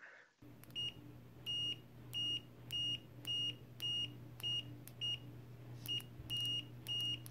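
Fluke 17B+ multimeter's continuity beeper sounding as the test probe tips are tapped together: about eleven short beeps of one high tone, some brief and some held a little longer. Each beep matches one touch of the probes, the meter's fast continuity response.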